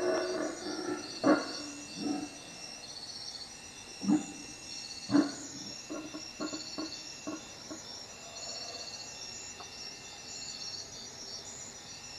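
Howler monkeys' roaring dies away in the first second, followed by a few short grunts, the loudest about a second and five seconds in and a quick cluster around six to seven seconds. Underneath, crickets chirp steadily in repeated pulsed trains.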